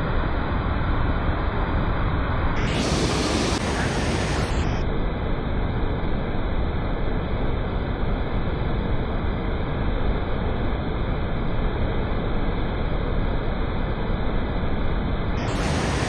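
Steady rushing roar of a waterfall, loud and even throughout, with no pitch or rhythm.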